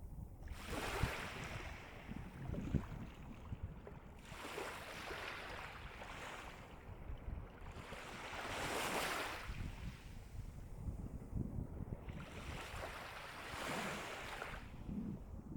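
Gentle sea waves breaking on the shore, each wash of surf swelling and fading about every four seconds, four times, over a steady low rumble.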